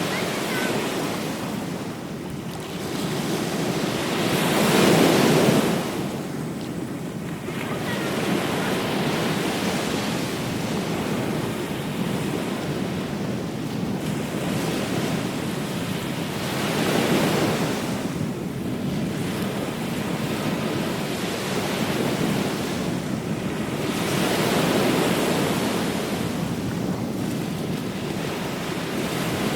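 Ocean waves washing onto a beach, swelling and receding every several seconds, the loudest break about five seconds in, with wind buffeting the microphone.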